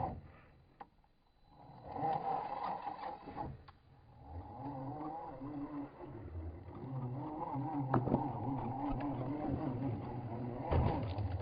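A small electric motor whining with a wavering pitch, its speed rising and falling, from about two seconds in, with a brief sharp tick near the end.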